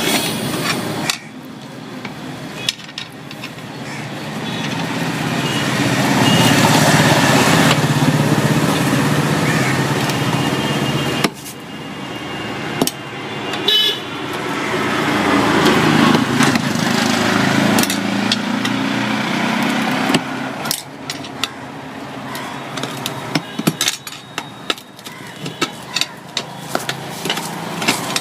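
Road traffic: motor vehicles passing in slow swells that rise and fade, with a horn and scattered sharp clicks and knocks.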